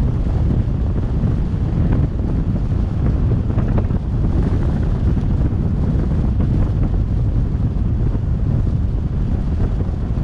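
Heavy, steady wind buffeting a microphone riding on a moving pickup truck, over a low road rumble, with a few faint knocks.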